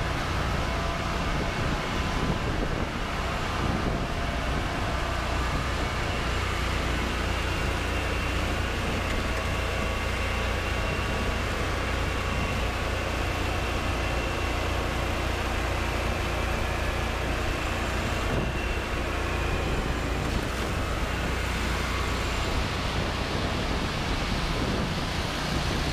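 Ride-on concrete power trowel's engine running steadily, a constant low hum with no change in speed.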